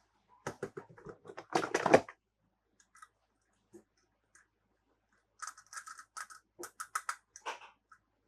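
Hard plastic toy parts and packaging being handled, clicking and rattling. A dense rattle of clicks comes about half a second in and is loudest just before two seconds. After a few scattered ticks, a second run of separate clicks follows from about five and a half seconds.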